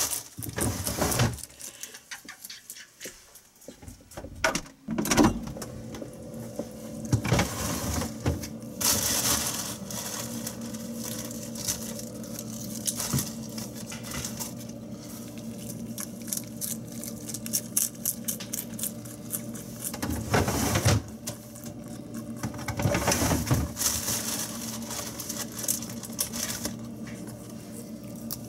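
Pet rabbit chewing fresh greens: rapid, crisp crunching clicks in runs, with a few louder rustling swells, over a steady low hum.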